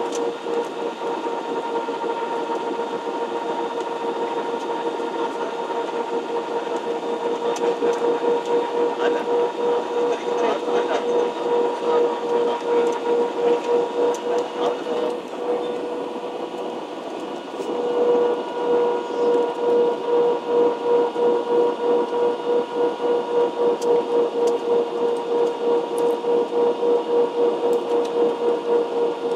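Cabin noise of an Airbus A320-family jet airliner on final approach, flaps down: the steady drone of the jet engines and rushing air, with a steady hum that wavers in loudness about twice a second. The drone dips for a moment just past the middle, then swells back.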